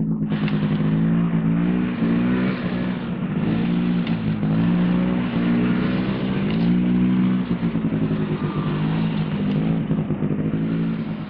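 Snowmobile engine running under load, its pitch rising and falling several times as the throttle is worked.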